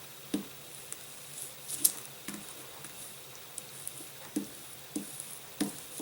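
Scattered light taps and crinkles, about ten spread irregularly over six seconds, from hands handling and pressing adhesive covering film on a balsa model-aircraft wing.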